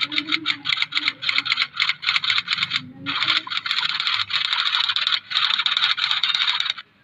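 Fast typing on a computer keyboard: rapid runs of key clicks in bursts, with brief pauses between them, stopping just before the end.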